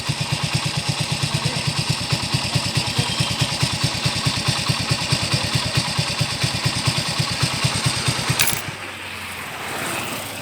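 Motorcycle engine idling with an even beat of about seven pulses a second. It cuts off with a click about eight and a half seconds in.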